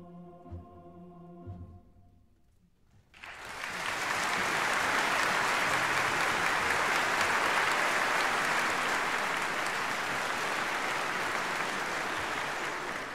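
The last held notes of a piece of music die away, and about three seconds in a concert audience breaks into loud, steady applause that eases off near the end.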